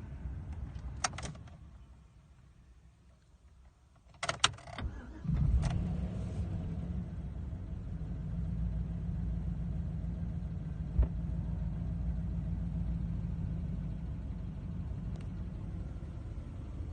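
Clicks and rattles like a key and controls being worked, then about five seconds in a vehicle engine starts and runs with a steady low drone.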